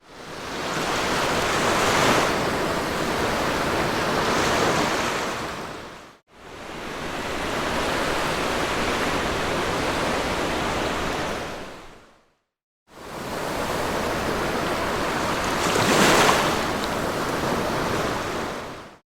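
Sea waves washing onto a beach in three stretches of about six seconds each, broken by short complete silences. A wave breaks louder about two seconds in and again near the end.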